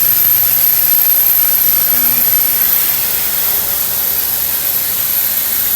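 CNC iron-cutting machine at work in the shop: a steady, loud hiss with a thin, high, constant whine over it.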